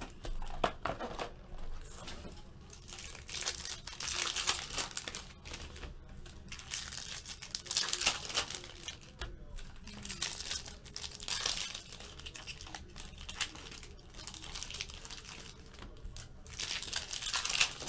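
Foil wrappers of trading-card packs crinkling and tearing as they are ripped open by hand, in repeated bursts.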